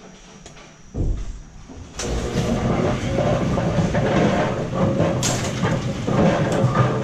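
Brunswick bowling pinsetter machinery starting up: a sudden low thump about a second in, then from about two seconds in a loud, steady motor drone with continuous rattling and clattering of the mechanism.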